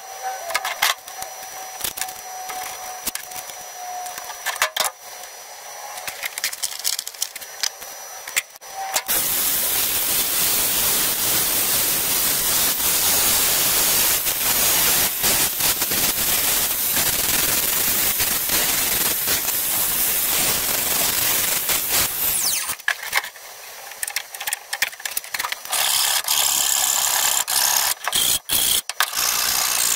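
Angle grinder with a thin cut-off disc cutting into a brass plate, a loud steady grinding noise from about nine seconds in until about twenty-three seconds, starting again near the end. Before that there are only scattered clicks and a faint thin tone.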